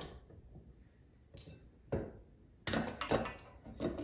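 Clicks, knocks and clatters of a KitchenAid stand mixer being put together: the mixing attachment fitted on and the stainless steel bowl set onto the base. A few separate knocks, with the loudest cluster about three seconds in.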